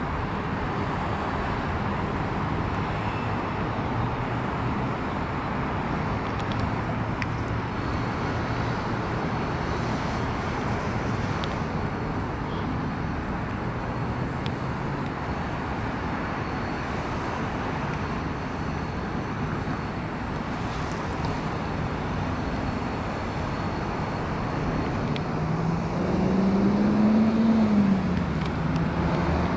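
Motor vehicle engine running with steady road noise, the engine hum shifting in pitch. Near the end it gets louder and rises in pitch as the vehicle speeds up, then drops back.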